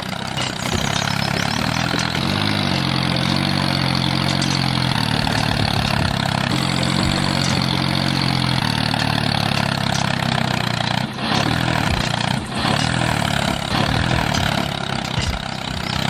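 Tractor engine running steadily, its low pitch wavering slightly, with two brief dips in level about eleven and twelve and a half seconds in.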